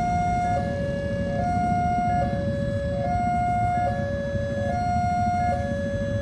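Railway level-crossing gate warning siren sounding a two-note alarm, alternating steadily between a higher and a lower tone, each held just under a second, with a steady low rumble underneath.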